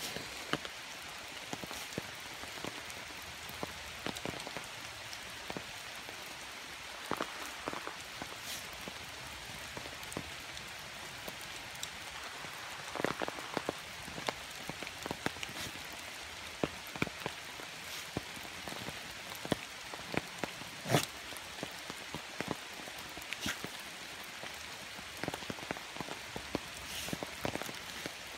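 A dog digging in soft, damp soil: irregular scrapes and patters of earth over a steady hiss, with a few louder scratches partway through.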